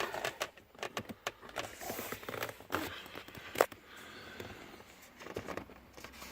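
Plastic under-dash trim panel of a C6 Corvette being pried at and handled, giving scattered clicks, creaks and rattles, with one sharp, loud click about three and a half seconds in as its retaining clips are worked loose.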